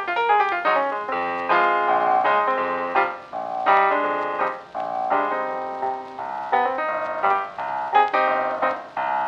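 Background piano music: a quick run of struck notes that ring and fade, playing on without a break.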